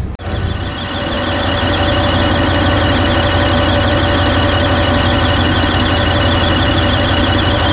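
Caterpillar D10R dozer's diesel engine running steadily, heard close up in the engine bay, with a high wavering whine over it. The sound swells slightly in the first second or two, then holds steady.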